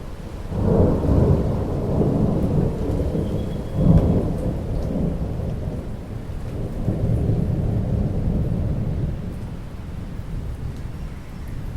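Thunder rumbling over falling rain: a low rumble builds about half a second in, peaks with a sharper clap around four seconds, and swells again later before easing.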